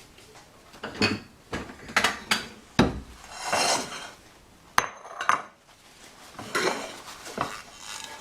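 Hot metal baking pan being handled out of the oven with paper instead of an oven glove: a series of irregular metallic clanks and knocks, with a short scrape about three and a half seconds in.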